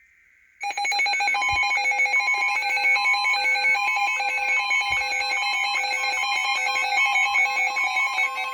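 Emergency Alert System tones. A short tail of a screechy digital data burst (the SAME header) is followed, about half a second in, by a loud, steady, harsh alarm tone: the attention signal that comes before a weather warning is read.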